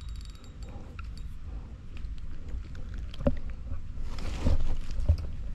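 A hooked fish being reeled in on a spinning reel and swung onto dry leaves: fine clicking from the reel in the first second, then a few thumps and dry-leaf rustling in the second half, over a steady low rumble.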